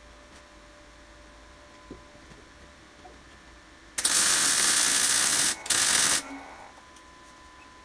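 MIG welder arc crackling on the steel chassis crossmember of a Land Rover Defender: about four seconds in, one weld burst lasting about a second and a half, a brief break, then a second short burst of about half a second.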